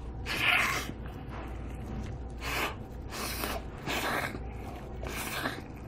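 Close-miked eating noises from a man gnawing meat off a large beef short rib bone, with about five short hissing breaths or sucks, the loudest near the start.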